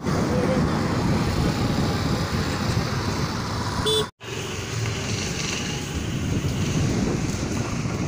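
Road traffic heard from a moving two-wheeler, a steady rush of engine, tyre and wind noise, with short horn toots about half a second and four seconds in. The sound cuts out for an instant at an edit just after the second toot.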